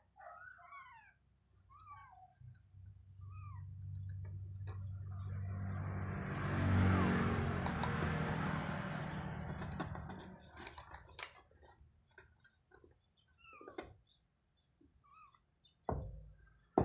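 A tiny kitten mewing in short, high cries, several in the first few seconds and a few more later. In the middle a louder steady rushing noise with a low hum swells up and fades away.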